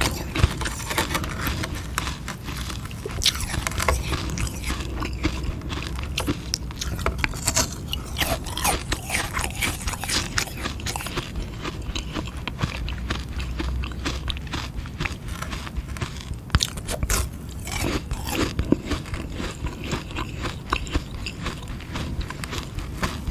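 Someone biting into and chewing a hard frozen sugar-water ice pop: a dense, continuous run of sharp, crisp crunches.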